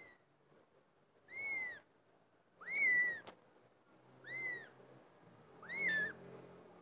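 Kitten mewing: four high, arching mews about a second and a half apart.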